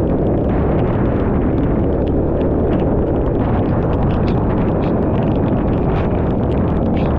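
Wind buffeting the helmet-mounted action camera of a moving motorcycle: a loud, steady rush, with scattered sharp ticks.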